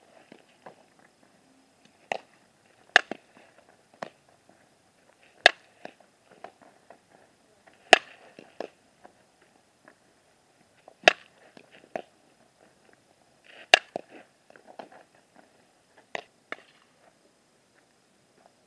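Sharp smacks of a softball being hit and caught in a leather glove, repeated every couple of seconds and often in pairs about a second apart, with softer scuffs in between.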